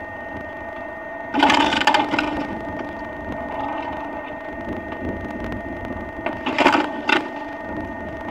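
Log splitter at work on firewood: a steady mechanical hum with several even tones throughout, and sharp cracks and knocks of wood about a second and a half in and twice more near the end.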